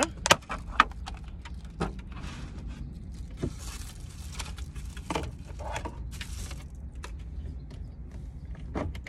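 A clear plastic takeout lid snaps and clicks as it is pried off a food bowl, followed by crinkling of plastic and paper wrappers. A steady low hum runs underneath.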